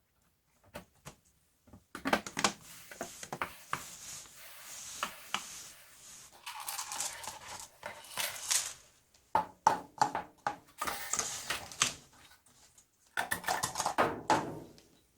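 Hands working on a Dell Latitude 3380 laptop: an irregular run of clicks, taps and scrapes from hard plastic and small parts being handled. There are a few sparse clicks at first, then busy clicking and scraping, with a louder burst of handling near the end.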